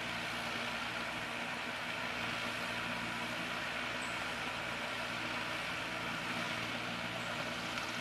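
Steady background hum and hiss, even in loudness, like a distant running machine or engine.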